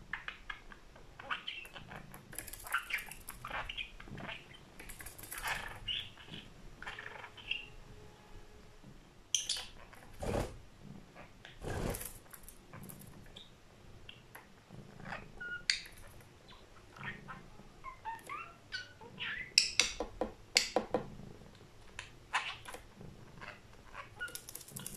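Budgerigar chattering and chirping in short, irregular bursts, with a couple of louder sharp knocks near the middle.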